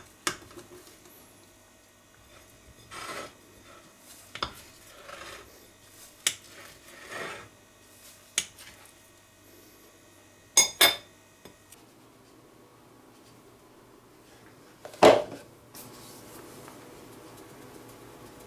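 Knife cutting a soft sponge cake into wedges on a plate, the blade clicking and scraping against the plate several times. The loudest knock comes about fifteen seconds in.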